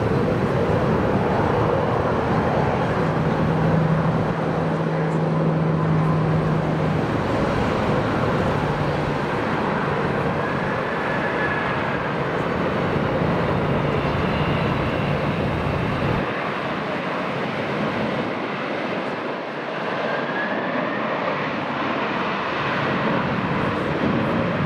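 Jet airliner engines running, a dense steady noise with a low hum under it; the deep rumble falls away about sixteen seconds in.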